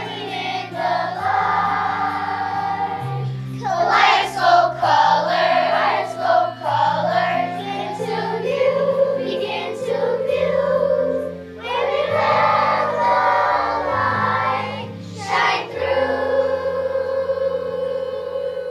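Children's choir singing a song with instrumental accompaniment, ending on a long held note near the end.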